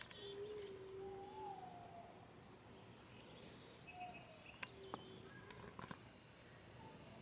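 Cats yowling: several drawn-out low moans, one bending up and down in pitch, with faint high chirping behind and a single sharp click a little past halfway.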